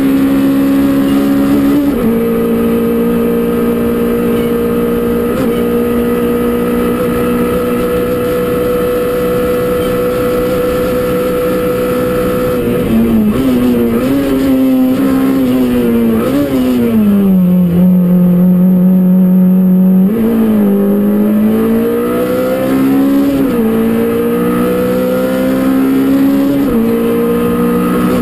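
Peugeot 205 Rallye Group A race car's four-cylinder engine heard from inside the cabin, held at high revs for about ten seconds. About halfway the revs fall in steps with downshifts and stay low for a few seconds, then climb again through several upshifts.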